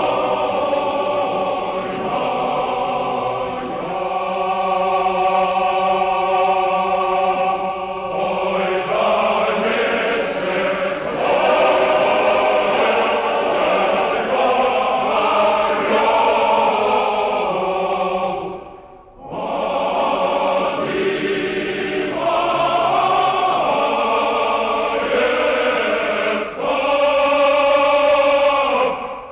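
A choir singing slow, long-held chords, with a brief break about two-thirds of the way through before the singing resumes.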